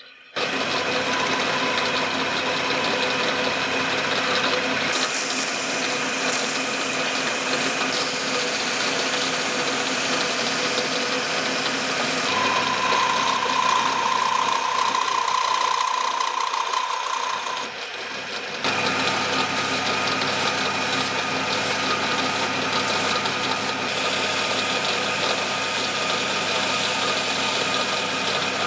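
Metal lathe turning a steel vise spindle, the cutting tool taking chips off and chamfering its end: a steady machine whine under the hiss of the cut. The sound changes abruptly several times, and a clear steady tone rings for about five seconds in the middle.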